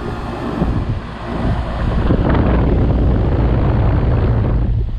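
2004 Tempstar 3-ton central air conditioner's outdoor unit running: a steady low hum with the rushing of the condenser fan, growing louder about two seconds in.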